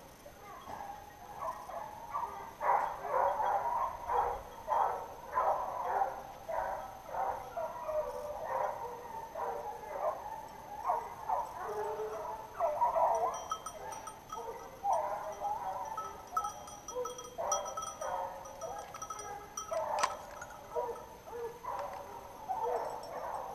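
A pack of hunting hounds baying, many short overlapping barks and bays several times a second, as they run a wild boar. One sharp click near the end.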